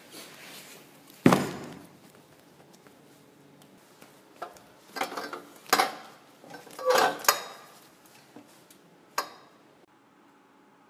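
Knocks and clatter of someone moving about and settling at a desk: one loud thump about a second in, a cluster of clinking knocks in the middle, and a single sharp click near the end.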